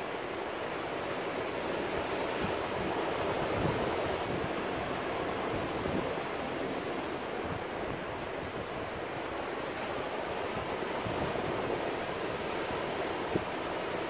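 Sea surf breaking and washing over rocks in a small cove: a steady rushing wash that swells a little a few seconds in, then eases.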